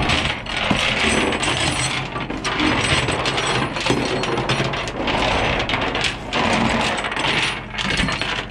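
Tow-truck chains and hooks rattling and clinking on a steel rollback deck, in repeated bursts of about a second each, over the steady hum of the truck's engine.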